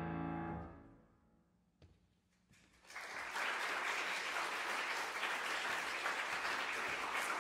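The last chord of a Steinway grand piano rings and dies away over about a second. After a short silence, an audience starts applauding about three seconds in and keeps clapping steadily.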